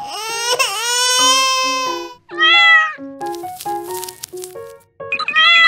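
A cat meowing: one long drawn-out meow, then two shorter meows, over light background music.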